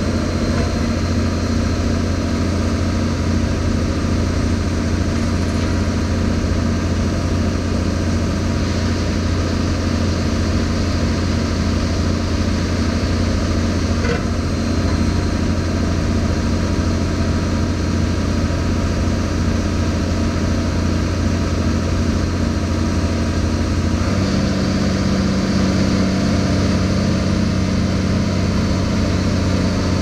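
Heavy diesel engine of the piling rig running steadily at a constant speed with a deep, even hum. Its note shifts slightly about six seconds before the end.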